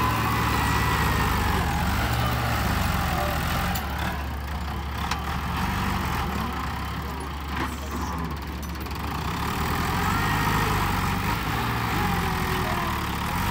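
New Holland TS90 tractor's diesel engine running under load while pushing soil, its note rising and falling as the revs change.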